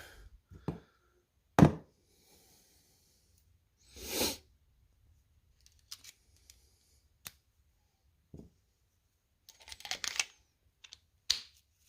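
Small clicks and taps of a Milwaukee 13-in-1 multi-bit screwdriver being handled as its bits and nut drivers are swapped and slotted in, spread out, with a sharper knock about a second and a half in, a brief rustle around four seconds, and a quick run of clicks near the end.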